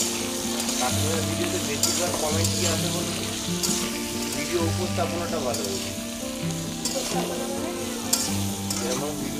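Moringa drumsticks sizzling as they fry in mustard oil in a metal kadai, stirred with a flat metal spatula that scrapes the pan now and then. Soft background music plays under it.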